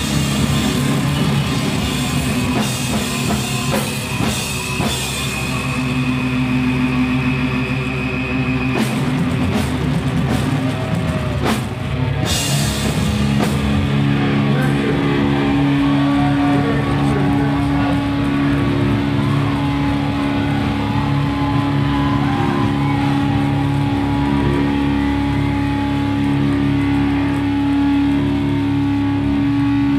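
A live stoner-rock band plays loud, with distorted guitars, bass and drums; drums and cymbal crashes drive the first half, then held chords ring on steadily for the rest.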